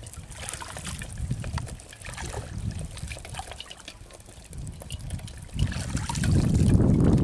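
Shallow muddy paddy water trickling and splashing as hands work in it, with small scattered clicks. A louder low rumble comes in about a second and a half before the end.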